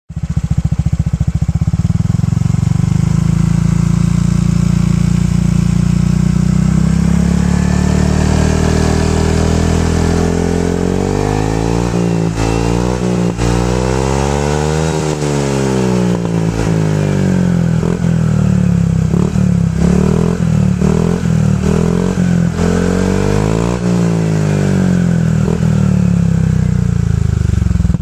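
Honda PCX 150 scooter's single-cylinder four-stroke engine running through an aftermarket stainless-steel slip-on exhaust (DX Generation SR 1): it idles steadily at first, then from about ten seconds in is revved up and let back down again and again, settling back toward idle near the end.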